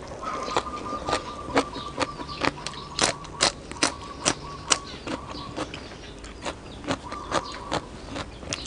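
Close-up crunchy chewing of raw salad vegetables (lettuce and crisp vegetable sticks from a papaya salad), with sharp crunches about two or three times a second.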